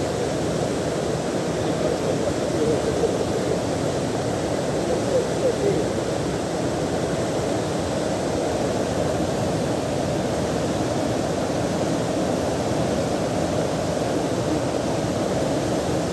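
Muddy floodwater of a swollen mountain stream rushing around a logjam of driftwood at a small bridge: a deep, steady rush of water with no let-up.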